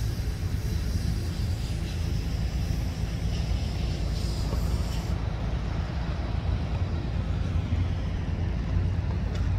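Steady low outdoor rumble, with a fainter high hiss over it that drops away about halfway through.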